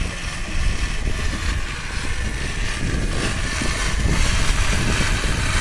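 A blender on a pedal-powered smoothie bike, spun by the rider's pedalling, running steadily as it blends fruit, a little louder from about halfway through.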